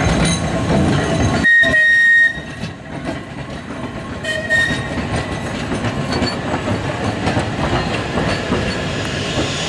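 A Manx Electric Railway tramcar and its open trailer rolling slowly past, wheels clattering on the rails. A short, high-pitched whistle blast sounds about a second and a half in, and a shorter one about four and a half seconds in.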